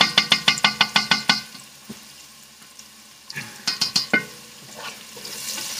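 A utensil stirring vegetables in a big pot, knocking against the metal in a fast run of about eight strokes a second for a second and a half, with the pot ringing. A shorter run of knocks comes near the middle, and a steady sizzle of the vegetables frying starts near the end.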